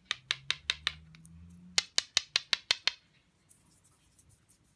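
Two quick runs of sharp clicks, about five a second, as the cut-open halves of a resin trackball ball are handled in the fingers.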